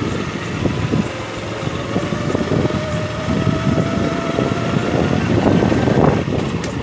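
Motorbike engine running while riding, with a whine that rises slowly in pitch, and wind rumbling on the microphone.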